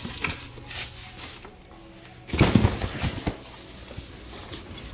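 A cardboard parcel and a plastic mailer being handled in a metal mailbox: a second or so of rustling and knocking about two and a half seconds in, with lighter handling clicks around it, over faint background music.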